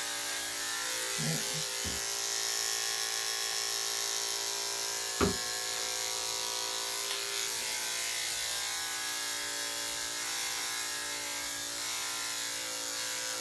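Electric dog grooming clippers running steadily as they shave through a heavily matted coat, a constant motor hum. A single short knock sounds about five seconds in.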